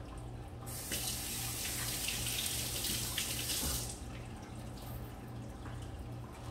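Kitchen sink faucet running for about three seconds, starting just under a second in, then shut off abruptly.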